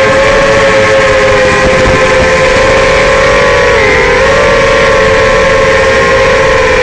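FPV racing quadcopter's four Racerstar BR2205 2600KV brushless motors and Dalprop Cyclone props whining in flight. It is a steady, several-toned buzz whose pitch dips briefly and recovers about four seconds in as the throttle changes.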